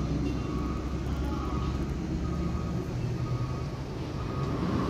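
Steady low rumble of heavy truck engines running on a hill road, with a motorcycle approaching.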